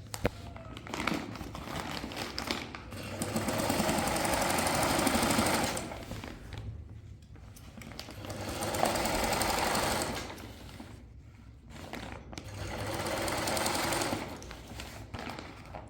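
Old sewing machine stitching in three runs of a few seconds each, with short pauses between.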